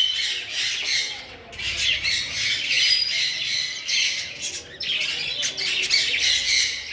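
Many small aviary birds, finches among them, chattering and calling at once in a dense, unbroken chorus.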